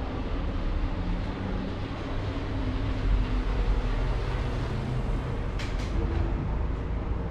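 Steady low mechanical rumble echoing along a long tunnel, with a few sharp clicks about five and a half seconds in.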